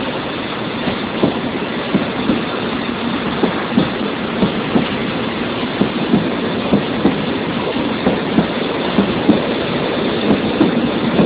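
Coal hopper wagons of a freight train rolling past at low speed, their wheels clicking over rail joints, often in pairs, over a steady rolling rumble. The clicks come a little faster toward the end as the train picks up speed.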